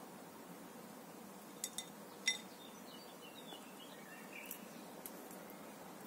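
Three light clinks of glass, the last the loudest, as art supplies are handled in a basket, about a second and a half to two and a half seconds in. Faint bird chirps follow over a steady soft outdoor hiss.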